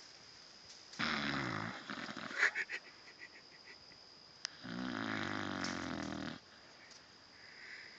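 English bulldog snoring in its sleep: a short snore about a second in, a brief fluttering rattle, then a longer snore of nearly two seconds.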